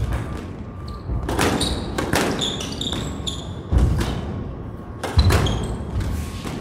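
Squash rally: the ball struck by rackets and thudding off the court walls about four times, a second or so apart, with sneakers squeaking on the court surface in the middle.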